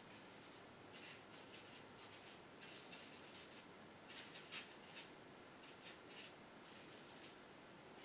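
Faint paintbrush strokes on canvas: short, quiet brushing sounds in irregular runs, with a few slightly stronger strokes near the middle.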